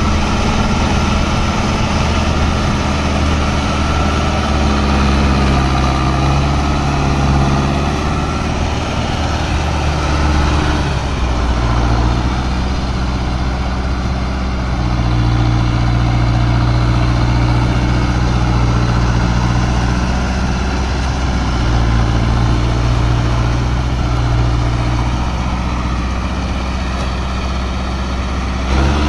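Diesel engine of a Mahindra Arjun Novo 605 DI-i 4WD tractor running steadily under load as it pulls through deep paddy-field mud. Its note shifts several times as the load changes.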